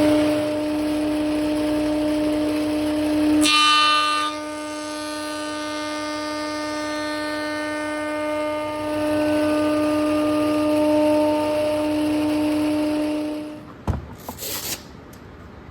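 Electric power tool motor running at a steady high pitch after spinning up, then winding down about 13 seconds in, followed by a knock and a short hiss.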